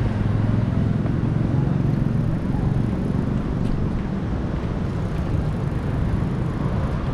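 Steady city traffic noise, cars running on the road around a cyclist, with a constant low rumble.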